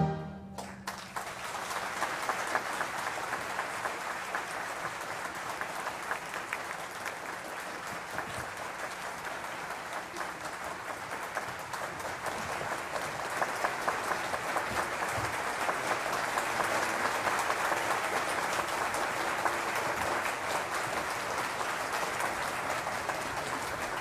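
A final orchestral chord cuts off in the first moment, then an audience applauds steadily, swelling a little past the middle.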